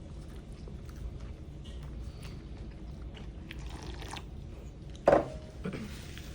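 Chewing and small mouth clicks of someone eating noodles. About five seconds in there is one sudden loud sound, and a smaller one follows it.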